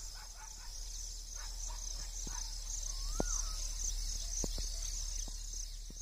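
Steady high-pitched chirring of insects such as crickets, with a short bird call about three seconds in, over a low steady rumble.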